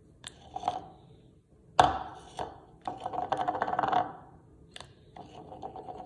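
A drinking tumbler struck by a parrot's beak and spun on a hard countertop. There are a few light taps, a sharp knock about two seconds in, then a rapid rattling whirr for about a second as the cup spins. After a single tap, a second rattling spin starts near the end.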